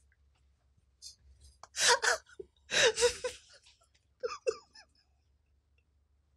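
A man laughing hard in four bursts of breathy laughter, the two loudest about two and three seconds in, dying away by about five seconds in.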